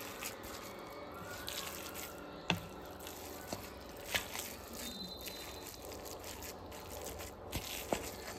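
Wooden spatula stirring and folding a thick mass of cooked black glutinous rice in a wide metal pan: wet squishing and scraping, with a few sharp knocks of the spatula against the pan.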